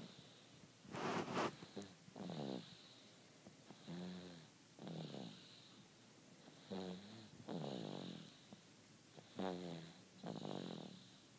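Rhythmic snoring: a pitched, rattling snore on each breath in and out, about one breath every two and a half to three seconds.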